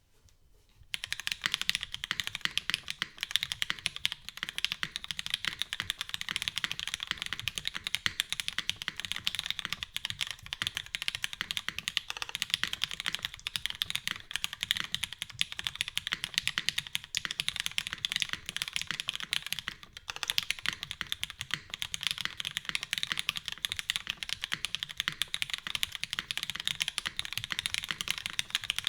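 Fast, continuous typing on a custom mechanical keyboard: a Singa Jaguar V2 with lubed Cherry MX Black linear switches in an aluminium top-mount plate, under GMK keycaps. The typing starts about a second in and runs on with a brief pause about two-thirds of the way through.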